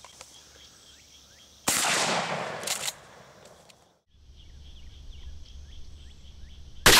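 A Mossberg 500 12-gauge pump shotgun fires a slug. A single loud blast comes about two seconds in, and its ringing tail and a shorter burst of noise last about a second. After a brief silence there is faint outdoor ambience with small chirps, and a second shotgun blast starts right at the end.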